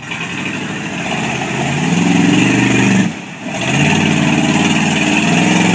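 Engine of a lifted GMC short school bus revving hard as it drives through deep mud and water, with the churning splash of mud around the tyres. The throttle eases off briefly about three seconds in, then comes back on.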